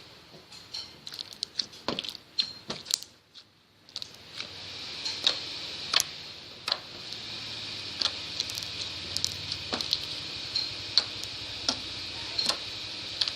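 Slime with foam cubes mixed in being squeezed and stretched by hand, giving irregular small sticky clicks and pops over a steady hiss, with a short lull about three seconds in.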